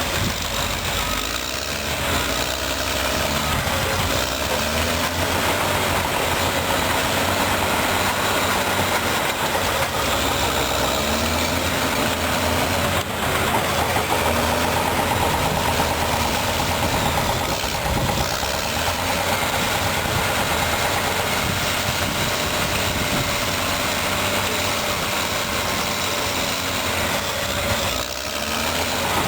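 Caterpillar D6R bulldozer working, its diesel engine running steadily with the engine note rising and falling a little every few seconds, over a constant wash of machine noise.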